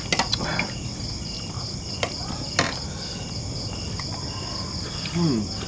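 A steady chorus of night insects chirring in a high band, with a few sharp clicks of plates and cutlery on the table, the loudest about two and a half seconds in.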